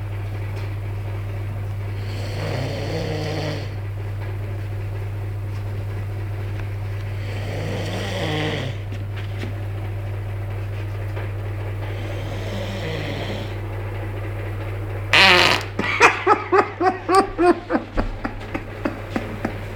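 A sleeping person snoring slowly, one snore about every five seconds, over a steady low hum. About 15 seconds in comes a sudden loud fart, followed by a rapid run of short pulses.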